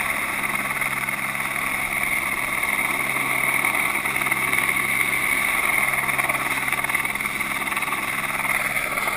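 Helicopter overhead, heard from the end of a long line slung beneath it: steady rotor and engine noise that holds at an even level.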